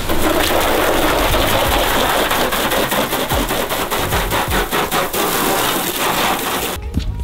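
A jet of water spraying and spattering onto a car's body panels and windshield as it is rinsed, a dense hiss with rapid crackling, cutting off abruptly near the end.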